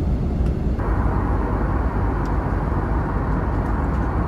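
Airliner cabin noise in flight: a steady, deep rush of engines and airflow. About a second in, the higher part of the hiss suddenly gets brighter.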